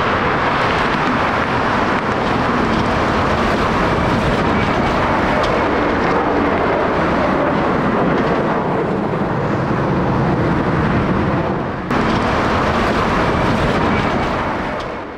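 Twin jet engines of an Airbus A321-200 at takeoff thrust, a loud, steady roar as the airliner climbs out, fading away at the very end.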